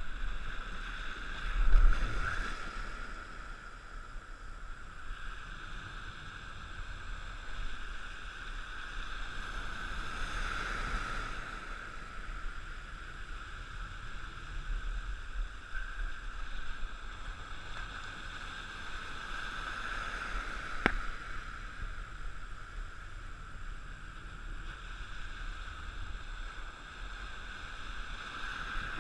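Water lapping and splashing close around a wading angler, a steady watery hiss, with a loud low bump about two seconds in and a single sharp click later on.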